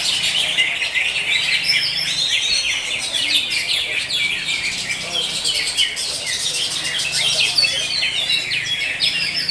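Many caged cucak hijau (greater green leafbirds) singing at once: a dense, unbroken stream of overlapping high chirps and whistles.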